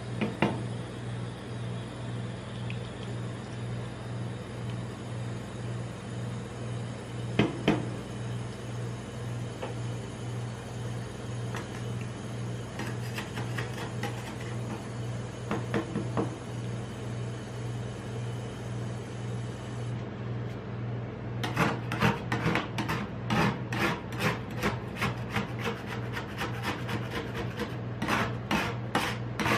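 Metal spatulas scraping and tapping on the frozen steel plate of a rolled-ice-cream pan, spreading and then chopping a Diet Pepsi ice cream mix, over a steady low hum. Only a few scattered clicks come at first; from about two-thirds in, the strokes come rapidly, several a second.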